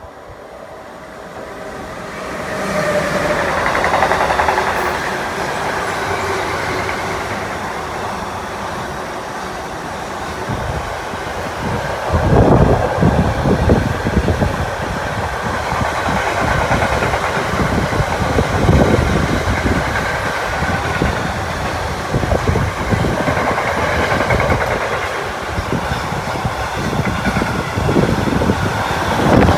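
Electric locomotive hauling a long freight train of double-deck car-transporter wagons, running through past the platform at speed. The sound swells over the first few seconds as the locomotive arrives, then becomes a steady rumble of wheels on rails, with clusters of clattering wheel knocks now and then as wheelsets cross rail joints.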